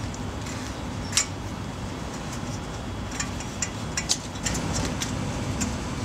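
Metal clicks of the retaining clip on a 2004 Audi A4's front brake caliper being worked into the caliper's holes by hand: one sharp click about a second in, then a scatter of lighter clicks, over a steady low hum.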